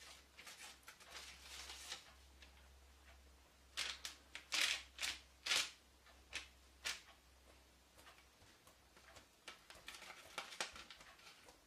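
Fingertips and fingernails pressing rows of dimples into soft, egg-washed pide dough on baking paper: a string of soft, irregular pats and crackles, the loudest bunched together a few seconds in and lighter ones near the end.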